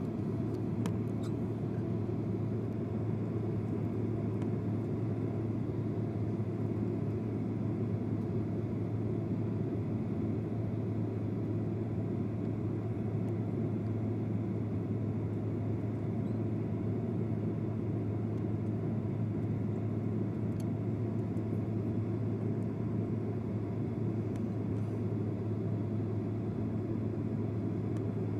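Steady low rumble of an airliner cabin in flight: engine and airflow noise at an even level, with a constant low hum.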